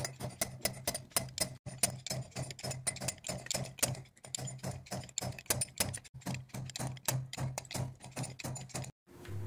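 Ball-peen hammer tapping a steel drift rapidly, about four light strikes a second, driving new valve guides into a VW AP aluminium cylinder head; the tapping stops near the end.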